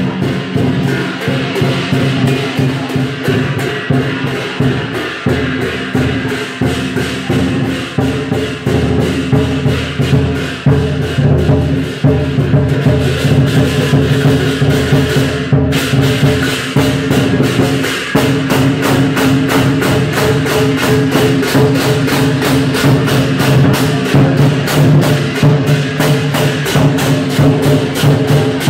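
Lion dance percussion: a large Chinese lion drum beaten in a fast, driving rhythm with hand cymbals clashing along with it. It grows a little louder about halfway through.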